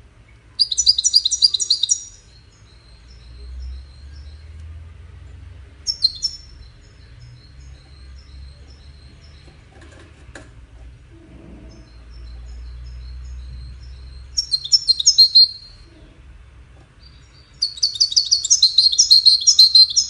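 European goldfinch singing: four bursts of rapid, high twittering trills, the longest near the end, with soft runs of quick repeated notes between them.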